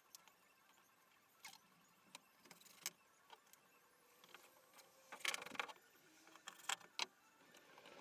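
Quiet workshop with scattered light clicks and knocks of tools or materials being handled, a short cluster of them about five seconds in and two sharp knocks near the end.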